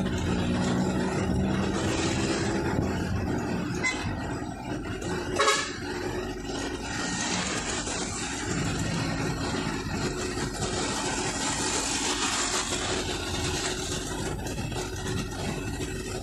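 Engine running and road noise heard from inside a moving vehicle in traffic, with one brief horn honk about five and a half seconds in.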